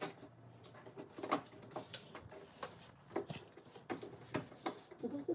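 Scattered light clicks and scrapes of a screwdriver and screw fastening a metal light-fixture mounting plate to a ceiling electrical box, at an uneven pace.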